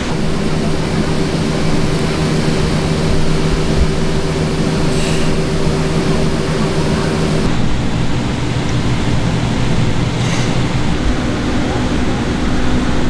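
Steady machine hum with a constant rushing noise from bakery equipment. The hum's pitch shifts about seven and a half seconds in.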